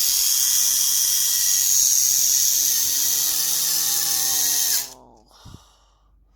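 Mini 4WD car's small electric motor and drivetrain gears running at full speed, a steady high-pitched whine that cuts off suddenly near the end when it is switched off.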